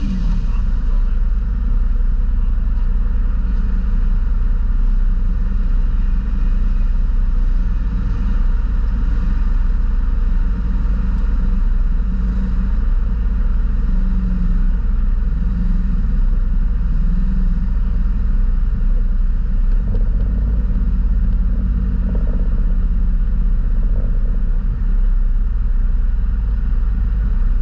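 Side-by-side UTV engines running steadily at low speed on a dirt trail, a low, even engine sound with only small swells in throttle, heard up close from the hood of the following vehicle.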